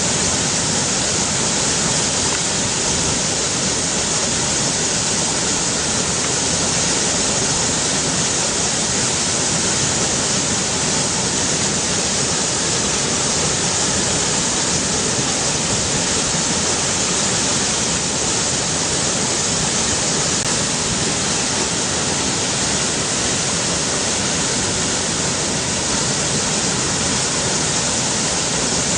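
River water flowing steadily: a constant, even hiss of moving water.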